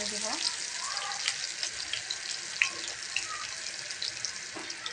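Chopped onions and whole cumin seeds frying in hot oil in a frying pan: a steady sizzle with scattered crackles and pops.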